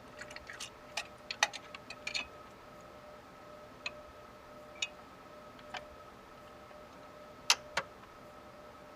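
Small plastic clicks and taps of the case's front-panel button and light connectors being pushed onto the motherboard header pins. There is a quick cluster of clicks in the first two seconds, then scattered single ones, and two sharper clicks close together near the end.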